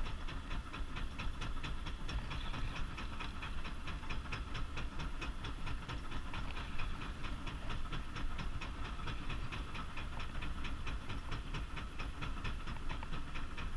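A boat's motor running under way, with water and wind noise and a fast, even ticking throughout.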